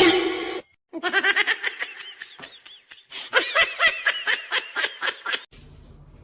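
A person laughing in a fast run of high-pitched bursts, starting about a second in and stopping shortly before the end.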